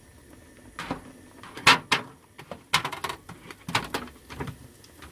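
Metal spoon knocking and scraping against a saucepan as boiled potatoes are tipped out into a foil roasting tray of hot beef dripping: a run of irregular clatters and knocks, roughly one or two a second, the loudest a little under two seconds in.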